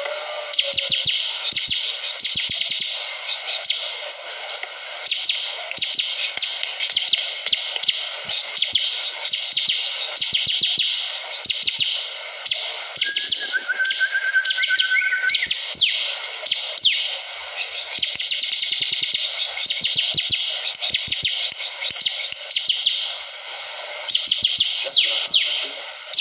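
Bar-winged prinia (ciblek kristal) singing a fast, dense, high-pitched chattering song of rapid chirps and trills, with hardly a break. A brief steady whistle sounds midway.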